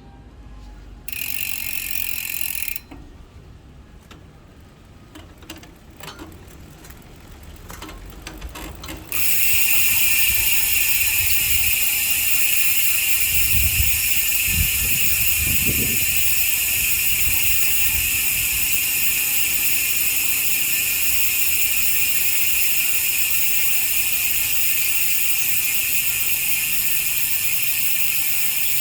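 Rear freehub of a Sagmit Evo 3 six-pawl hub buzzing as the wheel freewheels. There is a short burst of it near the start, some scattered clicks, and then a loud, steady ratcheting buzz from about nine seconds in.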